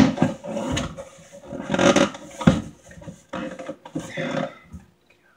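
Cardboard shipping box being handled and its flaps pulled open: a sharp knock at the start, then scraping and rustling of cardboard with a few more knocks, dying away near the end.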